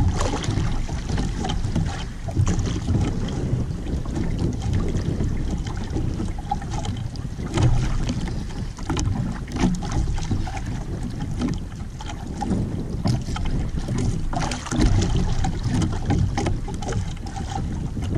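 Wind buffeting the microphone, with water sloshing against the hull of a small outrigger boat on choppy sea, and a few short knocks.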